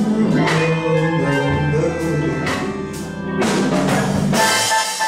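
Live jazz band playing, with drum kit and cymbal strokes over a bass line and sustained chords. Near the end the bass drops away suddenly.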